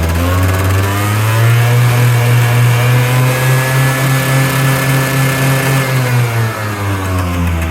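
Yamaha Basic Jog 50cc two-stroke scooter engine revving: the pitch climbs in the first second or so, holds steady at high revs for about four seconds, then falls back toward idle near the end.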